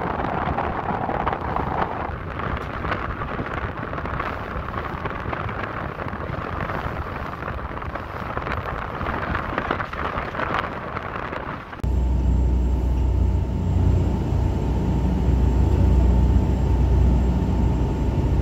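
Steady rushing noise of wind and water on a moving tour boat. About twelve seconds in, this cuts to the steady low drone of the boat's engines heard inside the cabin, with a thin steady whine above it.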